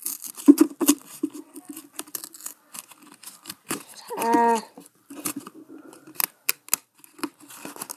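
Foil wrapper of a Pokémon card booster pack crinkling and tearing in the hands as it is opened, as a run of sharp, irregular crackles. About four seconds in there is a short hummed voice sound.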